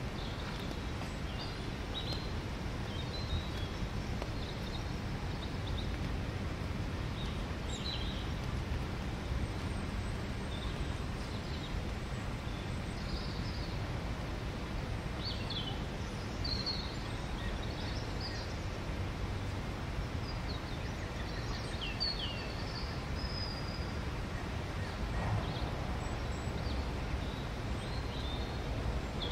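Outdoor park ambience: a steady low background rumble with songbirds chirping and calling in short, scattered bursts, a few more towards the end.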